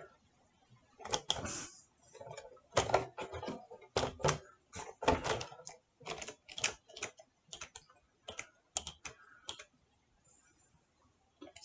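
Irregular clicks and light knocks of hands handling objects, a quick uneven series that stops about ten seconds in.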